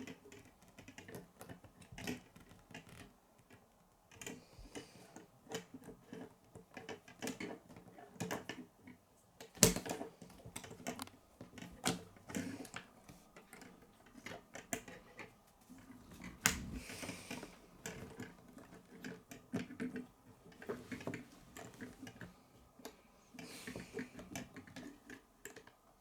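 Plastic K'nex pieces clicking and clattering as they are handled and snapped together, in irregular clicks with a sharp, louder snap about ten seconds in and another at about sixteen seconds.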